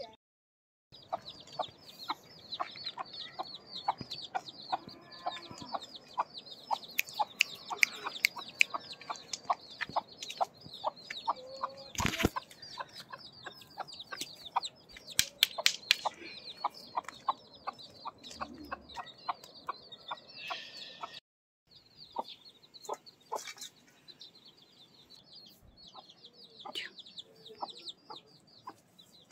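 Broody hen clucking steadily, about two to three clucks a second, while her brood of young chicks peep continuously in high, short chirps. The sound breaks off briefly twice.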